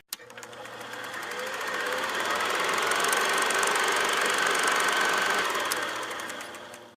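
Piston engine of a propeller airplane running with a rapid, even pulsing; it swells in over the first few seconds and fades away near the end.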